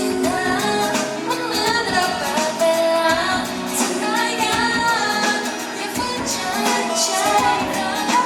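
Thai pop song: a singer's voice over full backing music.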